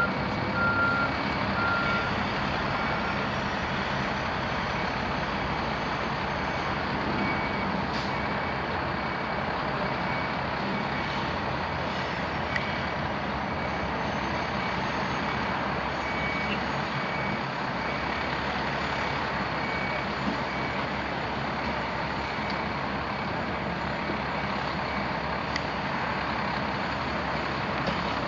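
Fire trucks' engines idling amid road traffic, while a truck's reversing beeper sounds a steady high beep about once a second, dying away near the end.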